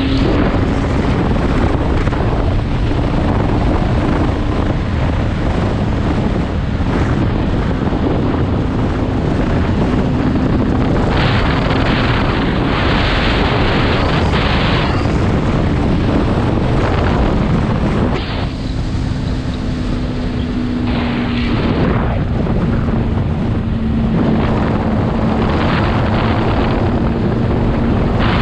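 Motorcycle engine running at a steady cruise under heavy wind rush on the microphone, the wind swelling in gusts; about two-thirds of the way through the level dips briefly and the engine note drifts a little in pitch.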